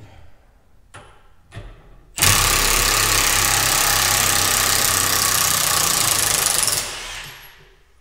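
Cordless Milwaukee impact wrench hammering on a tight nut at the end of a hydraulic cylinder rod, a steady loud rattle that starts about two seconds in, runs for about four and a half seconds and then winds down. The nut is held with Loctite. A few light clicks come before, as the socket is fitted.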